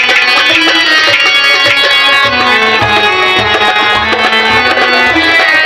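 Harmonium playing a melody in a live Urdu ghazal performance, over a steady hand-drum rhythm.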